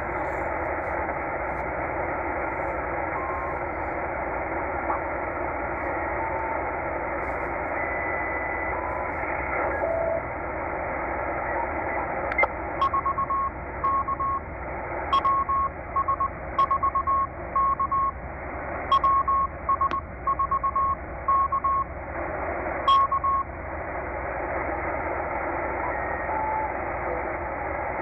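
Tecsun H-501x shortwave receiver tuned in upper sideband through the low end of the 20 metre amateur band: a steady, band-limited static hiss, with a few brief whistles at different pitches as carriers are tuned past. Starting about twelve seconds in, a Morse code (CW) signal is heard for roughly ten seconds, as one steady tone keyed on and off.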